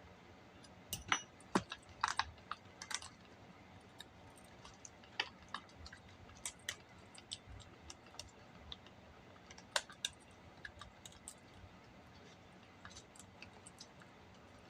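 Irregular light clicks and taps of a saw chain and bar being handled and fitted onto a pole saw's drive sprocket and chain adjuster, bunched together about one to three seconds in and scattered after that.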